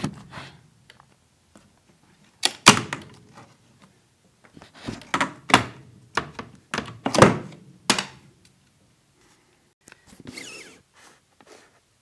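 Metal floor vent grille of a furnace cold-air return being handled, lifted out and set down on a wooden floor: a string of irregular clunks and knocks.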